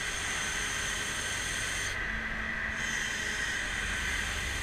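Rear-mount grapple truck's engine and hydraulic system running steadily, with a constant high whine over a hiss and hum. About two seconds in, the hiss briefly drops away while a low hum comes in for about a second.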